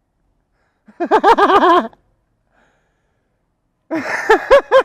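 A man's high-pitched giggling: a quick run of repeated voice syllables about a second in, then another run starting near the end.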